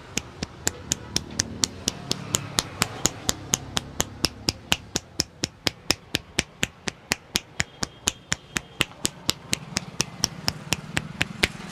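A barber's hands striking a customer's head rhythmically in an Indian champi head massage: sharp slaps about four a second, evenly spaced.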